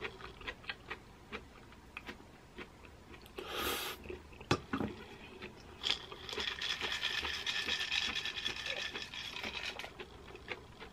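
Close-up eating sounds, with small mouth clicks and a sharp click, as zucchini noodles in pesto are chewed. Then, from about six seconds in, a few seconds of pine nuts pouring out of a bowl and pattering onto the pasta. This pouring is the loudest part.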